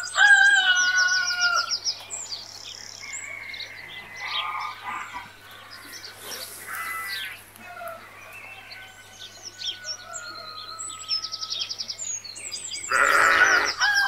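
Farmyard sound bed of chickens calling and small birds chirping in short repeated calls, with a louder, longer animal call near the end.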